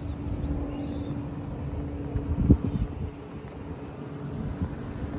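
Outdoor wind rumbling on the microphone, with a steady low hum underneath and a few low thuds about two and a half seconds in.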